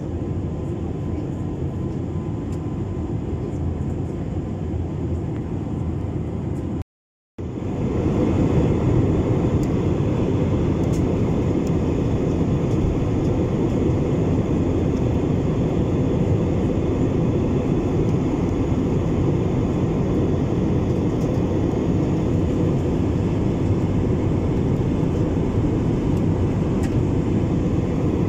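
Steady roar of a jet airliner's engines and rushing air as heard in the cabin over the wing in flight. The sound cuts out completely for about half a second around seven seconds in, then comes back a little louder.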